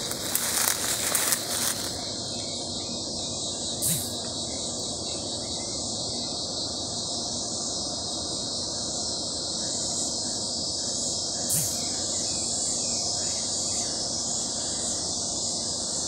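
Cicadas droning in a continuous high, even buzz, with two soft clicks, about four seconds in and near twelve seconds.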